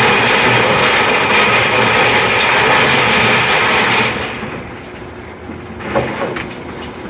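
Excavator working a screening bucket attachment: loud, steady machine noise that drops away sharply about four seconds in, with a single knock near the end.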